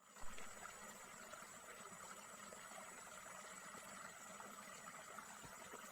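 Faint, steady background noise with a thin high tone throughout, and one short knock just after the start.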